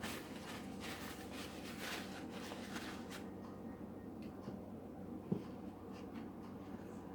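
Soft rustling and scraping as raw chicken legs are wiped and set into a baking dish, with one short knock about five seconds in.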